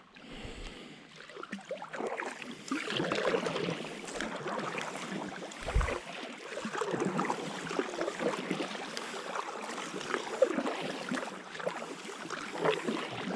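Stand-up paddleboard paddle dipping and pulling through water: irregular splashing and dripping that builds over the first couple of seconds, with a single low thump about six seconds in.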